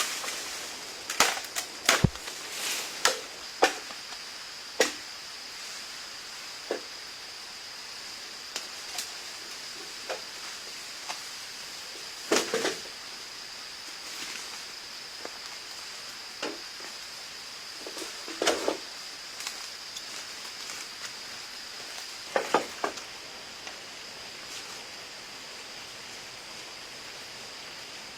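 Irregular sharp knocks and cracks, some in quick clusters, over a steady high-pitched whine.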